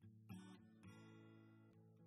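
Faint background music: plucked acoustic guitar notes.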